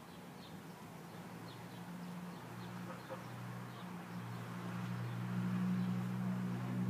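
Faint bird chirps at first, then a steady low machine hum that grows louder through the second half.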